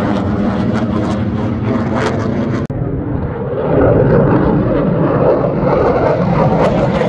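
Fighter jet engine roar from an aircraft flying overhead: a steady, loud rumble that breaks off for an instant at a cut and then comes back louder, growing as the jet nears.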